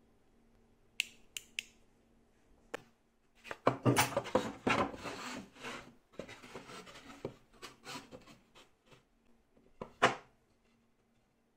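Plywood panels knocking and scraping against one another and sliding on a cutting mat as they are stood up and fitted into a box, in a dense run of knocks and rubbing. A few light clicks come near the start, and one sharp wooden knock comes near the end.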